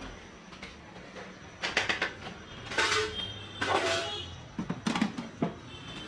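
Steel kitchenware clinking and scraping in about four short clattery bursts, roughly a second apart, from a steel pot and idli plates being handled.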